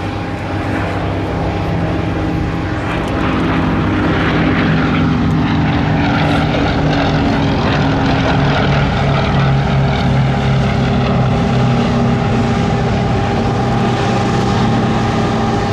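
Bristol Mercury radial-engined propeller aircraft running, a steady engine drone that grows louder about three seconds in.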